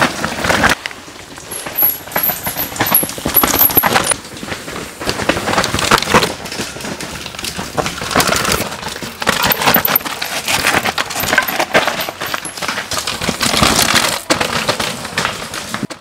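Downhill mountain bikes clattering down a rough dirt trail: chains, frames and suspension rattling and tyres scrabbling over dirt, rocks and roots. It comes in several loud passes, with a brief drop about a second in.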